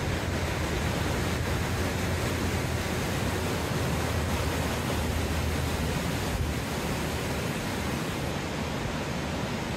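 Steady rushing of loud running water, with wind buffeting the microphone in a fluttering low rumble that eases a little near the end.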